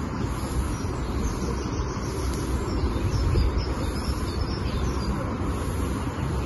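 Outdoor pond-side ambience: a steady low rumble of wind on the microphone, with faint bird chirps now and then.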